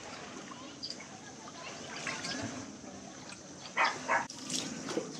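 Two short barks in quick succession, about four seconds in, plausibly a dog, over a steady wash of shallow sea water.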